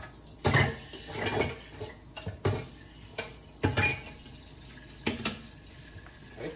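Dishes and utensils being washed in a stainless steel kitchen sink: several loud clunks and clatters of hard items knocking against the sink, with some water from the tap.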